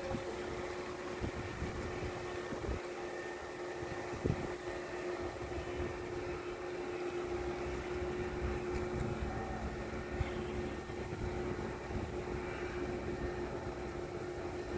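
Heavy construction machinery, most likely the crawler crane's diesel engine, running steadily with a constant droning hum while the crane holds a gantry beam section aloft. A few brief low thumps, likely wind or handling on the microphone, come through at times.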